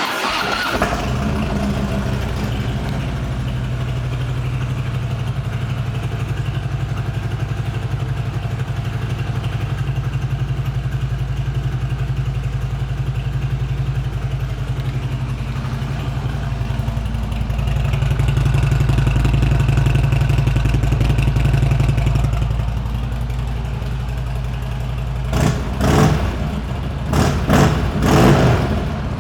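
2015 Harley-Davidson Street Glide Special's V-twin with aftermarket pipes starting up and settling into a steady idle. It runs a little higher for a few seconds past the middle, then gets several quick throttle blips near the end.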